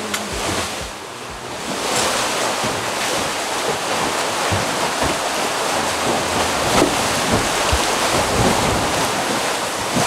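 Open-ocean water rushing and splashing past the hulls of a sailing catamaran under way, with wind buffeting the microphone. It is quieter at first and comes up loud about two seconds in.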